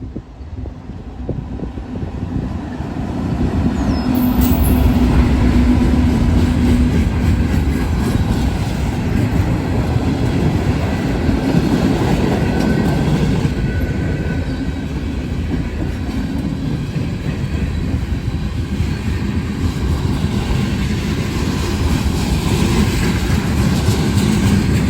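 Norfolk Southern diesel freight train passing close by: the locomotives' engine hum grows louder over the first few seconds, then a steady rumble and clatter of freight-car wheels on the rails.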